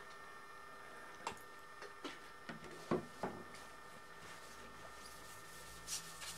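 Faint handling sounds on a workbench: a few light clicks and taps in the first half and a short scrape near the end, over a faint steady high hum.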